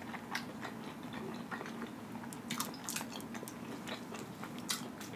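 A person chewing a mouthful of cheesy meatball with lips closed: soft, wet mouth clicks and smacks, scattered and irregular.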